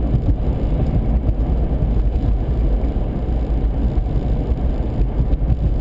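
Steady low road and engine rumble inside a moving car's cabin, cruising at about 65 km/h.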